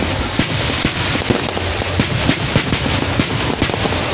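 Fireworks display going off: a quick, uneven string of bangs and cracking pops, a few a second, over a continuous din of crackling.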